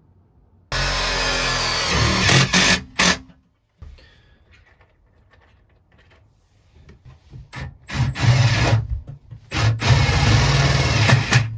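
Cordless drill driving screws: one long run about a second in, then several short trigger bursts over the last few seconds.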